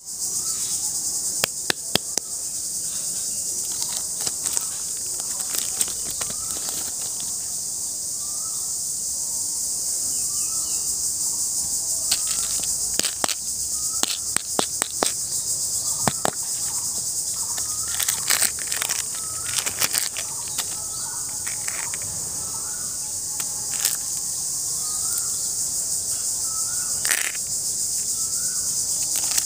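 Steady, high-pitched insect chorus, like crickets, under scattered sharp plastic clicks and taps as a hollow plastic toy ball is handled, twisted open and filled with candies. Through the middle a short rising chirp repeats about once a second.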